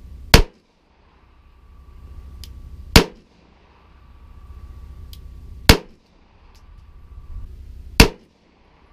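Four single shots from a CZ blowback pistol firing .380 ACP and 9x18 Makarov over a chronograph, about two and a half seconds apart. Each report cuts off abruptly.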